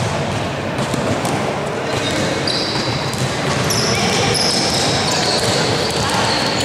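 Basketball game sounds: a ball dribbled on the hardwood court, and from about two and a half seconds in, many short high squeaks of sneakers on the floor, over a hall full of voices.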